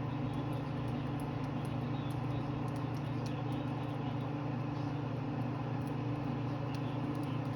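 Butter sizzling with faint crackles around a freshly seared ribeye in a hot cast iron skillet, over a steady low hum.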